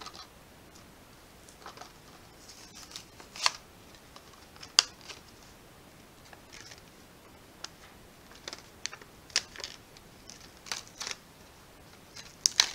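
A Hot Wheels blister card being opened by hand: the cardboard backing tearing and the plastic blister crackling as the die-cast car is pried out, in scattered sharp clicks and snaps, the loudest about five seconds in and near the end.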